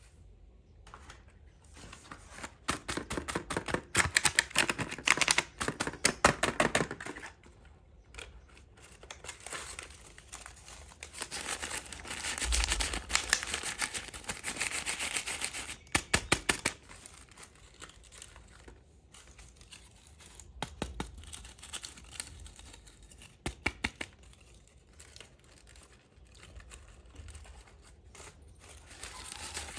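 Toy packaging being opened and handled: bursts of rapid crinkling and tearing of plastic and paper, with scattered clicks and taps in between.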